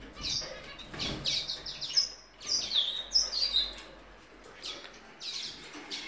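Cage birds chirping, with lovebirds among them: many short, high chirps in quick succession, thinning out briefly a little past the middle.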